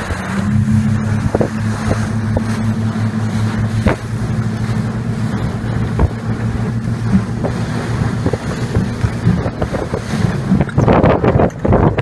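Speedboat's outboard motor running with a steady drone, wind buffeting the microphone. Near the end the drone gives way to a rapid flurry of knocks and rushing noise.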